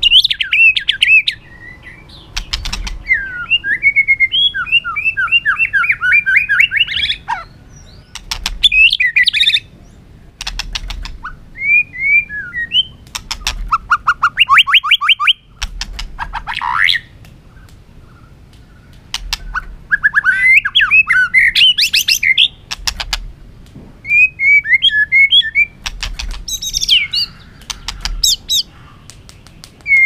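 White-rumped shama (chòe lửa) singing in loud bursts of varied whistled phrases. The phrases run between short pauses and include rapid runs of repeated notes, with sharp clicks between them.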